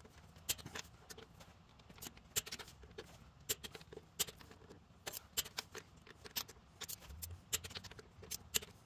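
Torque wrench ratcheting in short strokes on the bolts of a Big Cam Cummins accessory drive: sharp, irregular metallic clicks, a few a second, as the bolts are checked for torque.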